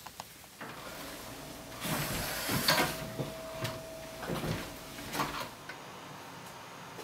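Cupboard doors and drawers being yanked open during a hurried search: rustling and clatter with several sharp knocks in the middle, over a faint steady tone.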